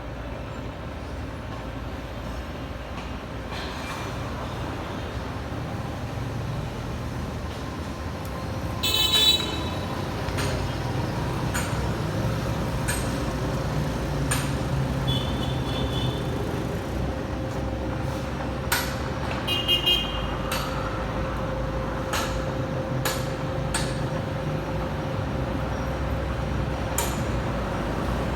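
Okuma radial drilling machine running with a steady hum, a steady tone entering about a third of the way in. Scattered sharp clicks and three short high beeps sound over it.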